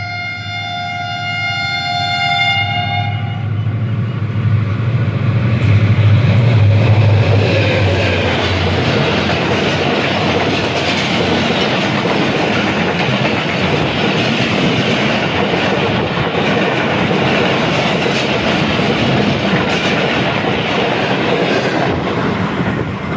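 Hazara Express passenger train on Pakistan Railways: the diesel locomotive's horn sounds a steady chord-like blast for the first three seconds as it approaches. The train then runs past on the near track, loud rumbling and wheels clattering over the rail joints, loudest about six seconds in as the locomotive goes by, then an even din as the coaches pass.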